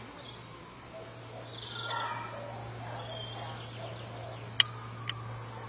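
Faint bird chirps over a steady low hum, with a sharp click about four and a half seconds in and a smaller one half a second later.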